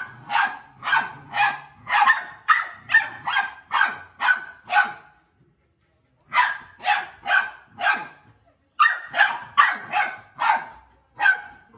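Pit bull puppy barking: a rapid run of short, sharp, high-pitched barks, about two a second, broken by two brief pauses.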